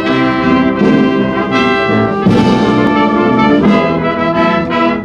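Naval military brass band playing: trumpets, trombones, saxophones and tuba in held chords that change every fraction of a second, with a brighter, noisier stretch about two seconds in.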